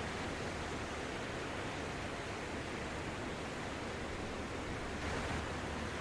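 Sea waves washing ashore: a steady hiss of surf that swells briefly about five seconds in.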